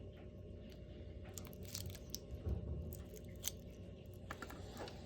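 Hands handling a wristwatch and its packaging: scattered small clicks and crinkles, with a soft knock about halfway through, over a low steady hum.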